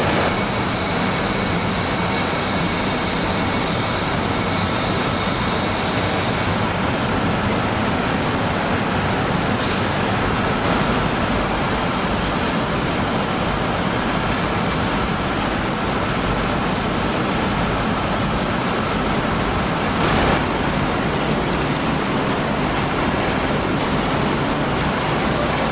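Steady machinery noise of a running continuous tyre pyrolysis plant, an even mechanical drone with a faint steady whine in the first few seconds. There is a brief louder swell about twenty seconds in.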